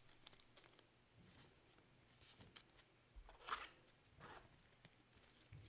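Faint rustling and soft clicks of trading cards being handled and shuffled by gloved hands, in a few brief spells.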